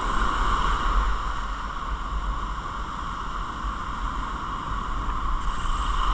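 Surf breaking and washing up the sand in a steady rush, with wind buffeting the microphone in low gusts.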